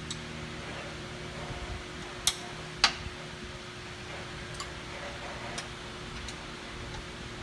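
A steady hum with a few sharp clicks from tools and parts being handled during repair work on the machine; two louder clicks come about two to three seconds in, then three fainter ones.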